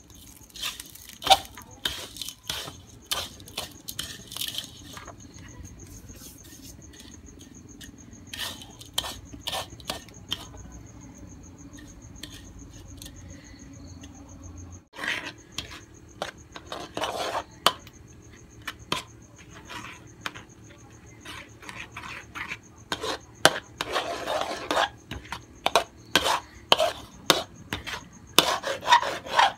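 Metal ladle scraping and clinking against an aluminium wok while stirring sugar as it melts into caramel. Irregular scrapes and taps over a faint steady hum, growing busier in the last few seconds.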